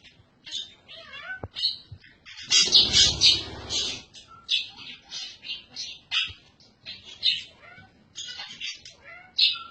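Small animals calling: many short, high-pitched cries in quick succession, loudest about three seconds in.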